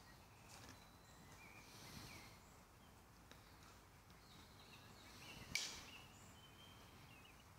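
Quiet woodland ambience: a few faint, short bird calls over low hiss, with one sharp click a little past halfway.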